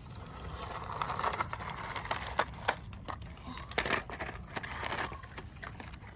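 Irregular clicking, clattering and scraping, as of plastic toy trucks and an excavator being handled and pushed about, with a few sharper clicks through the middle.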